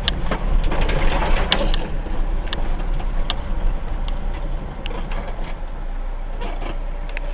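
A vehicle's engine running with a steady low rumble, mixed with scattered sharp knocks and rattles that thin out over the last couple of seconds.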